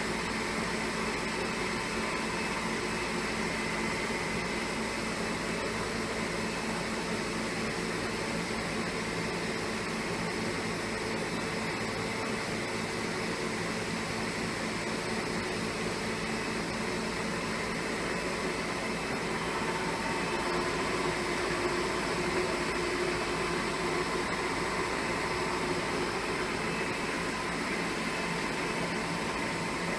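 A CNC bed-type milling machine running: a steady mechanical hum with several steady tones over even noise, shifting slightly about twenty seconds in.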